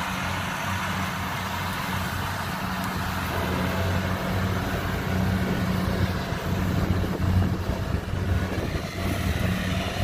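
Kubota DC70 rice combine harvester running steadily as it cuts and threshes lodged rice: a steady low diesel drone with a broad mechanical noise over it, growing a little louder from about four seconds in.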